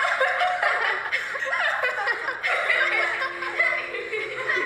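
Several girls laughing and snickering together, a mocking laugh at someone.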